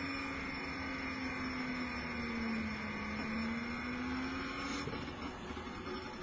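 Homemade reaction wheel's motor, spinning a 10 cm aluminium wheel under closed-loop speed control, giving a steady whine. About two and a half seconds in the pitch sags as a finger drags on the wheel, then climbs back as the controller restores the set speed. The whine fades about five seconds in.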